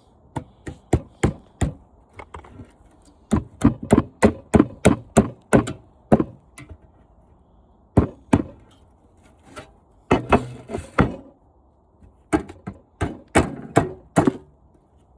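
Repeated sharp blows knocking at a window air-conditioner's condenser coil to pop a piece loose, about three strikes a second in runs broken by short pauses.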